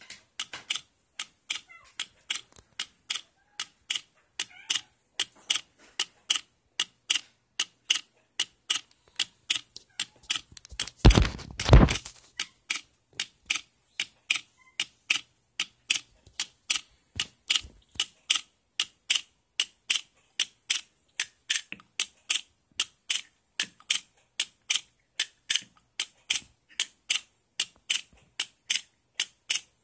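Valtek gas injector rail clicking steadily as an Arduino pulses its coils, 300 ms open and 300 ms closed, giving sharp clicks at about three a second. About eleven seconds in, a louder low rumbling thump lasting about a second sounds over the clicks.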